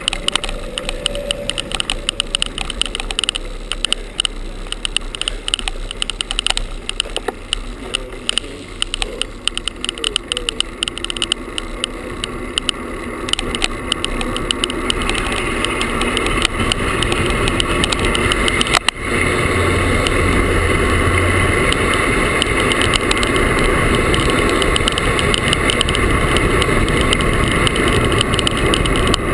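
A GoPro camera tied to bicycle handlebars with a shoelace, rattling and vibrating against the bar as the bike rides over the road. Rapid clicking fills the first half, then a louder steady rush of wind and road noise builds from about halfway as the bike speeds up.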